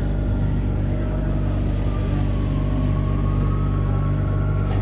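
Rome Metro Line B train running, heard inside the car: a steady low hum from the train's electrical equipment, with a faint whine that dips and then rises in pitch.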